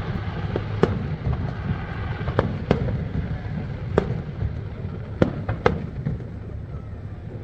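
Aerial fireworks exploding: about half a dozen sharp bangs at uneven intervals over a steady low rumble.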